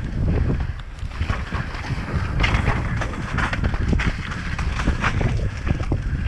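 Mountain bike descending wet rock slabs at speed, heard from a helmet camera: wind rushing over the microphone with a rumble and a run of rattles and knocks from the bike and its tyres on rock.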